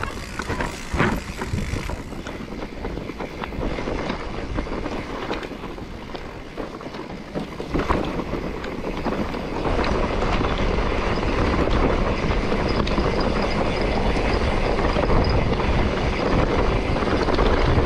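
Motor vehicle driving, with wind on the microphone and a few sharp knocks in the first eight seconds; the running gets steadier and louder about ten seconds in.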